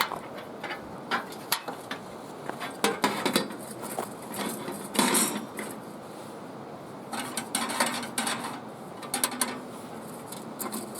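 Irregular metal clinks, knocks and scrapes from a heat-resistant metal folding camp side table being handled, with a longer scrape about five seconds in.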